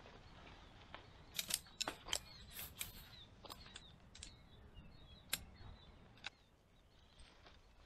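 Sharp clicks of shock-corded tent pole sections snapping together, a quick run of them a little over a second in, then a few single clicks.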